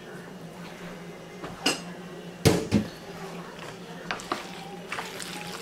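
A metal colander knocks sharply against a plastic bowl a few times, loudest about two and a half seconds in, as drained macaroni is shaken out. Lighter clicks follow as a wooden spoon stirs the pasta in the bowl, over a steady low hum.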